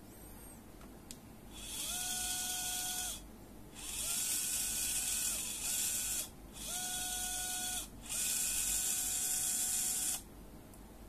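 Brushed DC gearmotor with a 20 RPM reduction gearbox running under joystick control, in four runs of whirring with short pauses between. Each run has a steady whine that rises in pitch as the motor spins up and falls as it stops.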